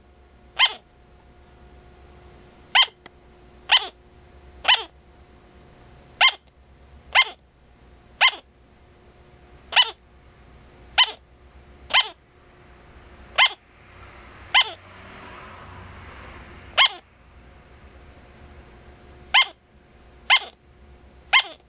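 A dog barking in single, sharp barks, each dropping quickly in pitch, about once a second, with a pause of a couple of seconds near the end.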